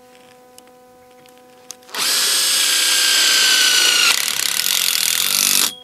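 Cordless drill driving a self-tapping screw through the bracket into a metal greenhouse bow. The motor whines steadily for nearly four seconds, starting about two seconds in, with its pitch sagging slightly as the screw bites. The sound turns rougher just past four seconds, then cuts off sharply.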